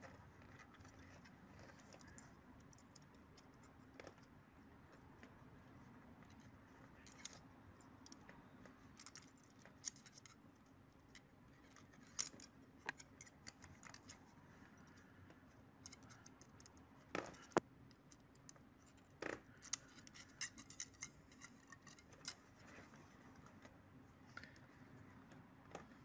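Faint metallic clicks and scrapes of a feeler gauge blade sliding between a camshaft lobe and a valve bucket on a Honda CBR250R cylinder head, checking valve clearance with 0.25 mm (go) and 0.28 mm (not-go) blades. The clicks are scattered, with a few louder ones about two-thirds of the way through.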